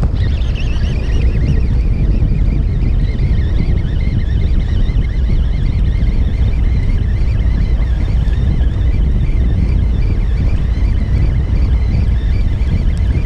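Baitcasting reel being cranked fast, its gears giving a wavering whine from the start, as the rig is wound up from deep water. A steady low rumble of wind and boat noise runs underneath.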